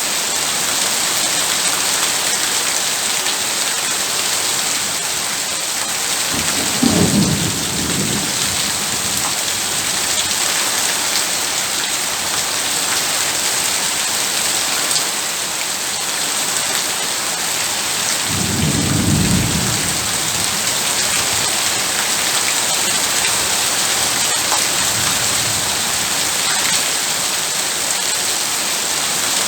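Heavy rain falling steadily, with two low rolls of thunder, one about seven seconds in and a longer one around eighteen seconds in.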